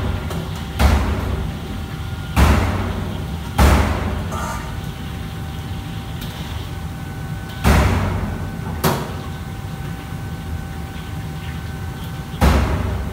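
Wok station in a commercial kitchen: steady running noise from the range and extraction hood, broken by six sudden heavy knocks at uneven intervals as the cook works the wok.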